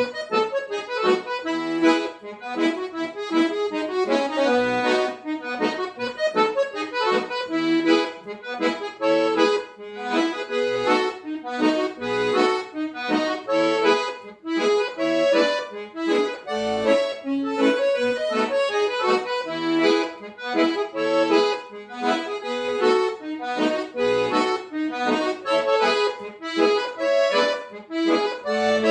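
Piano accordion played solo: a xote, the Brazilian two-step dance tune, with a melody over a steady bass pulse.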